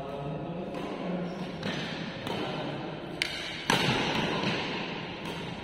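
Badminton rackets smacking a shuttlecock back and forth in a doubles rally: a run of sharp hits about every half second to second, the loudest a little past halfway, ringing in a large hall.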